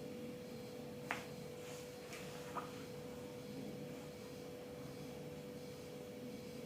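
A faint steady hum holding one pitch, with two small sharp clicks, about one second and two and a half seconds in.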